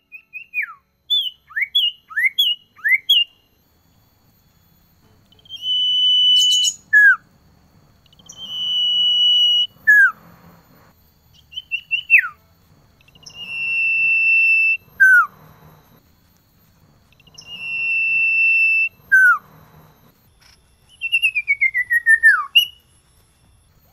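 Male common iora singing. First comes a quick run of four short notes that each slur downward, then long steady whistles, each ending in a sharp drop in pitch, repeated four times. Near the end there is one long falling slur.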